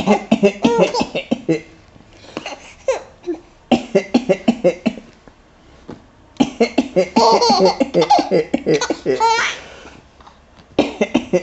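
A baby of about six months laughing in repeated bouts in response to an adult's coughs, with short pauses between; near the middle a long bout ends in a high, rising squeal.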